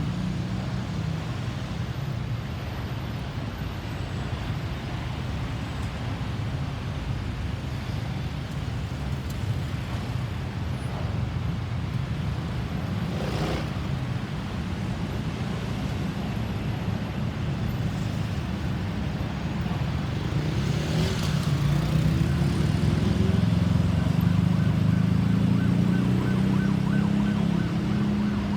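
Road traffic: vehicle engines running with a steady low hum, growing louder over the last several seconds.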